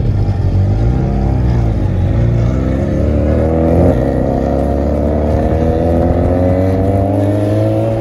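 Car engines accelerating hard, heard from inside a following car. A brief rev comes about a second in, then a long steady climb in pitch as the cars pull away.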